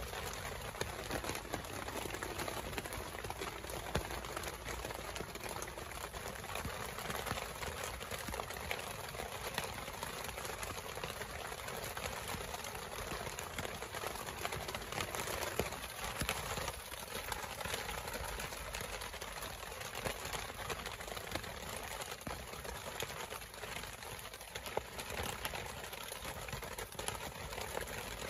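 Heavy rain falling on a tent and its rain tarp, heard from inside the tent: a steady, dense patter.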